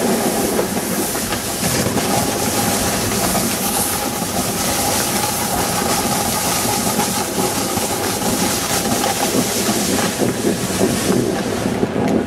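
Steady rushing and scraping of skiing downhill: skis sliding over the snow, with air rushing over the microphone.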